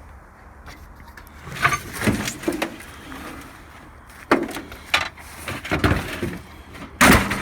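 A heavy object being moved about by hand, giving a series of irregular knocks and bangs, the loudest one near the end.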